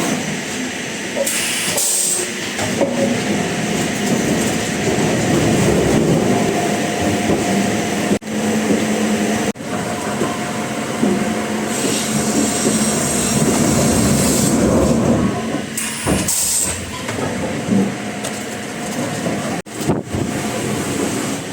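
Sawmill machinery running: a steady mechanical rumble and clatter with a few brief higher hissing passages. The sound breaks off sharply several times at edit cuts.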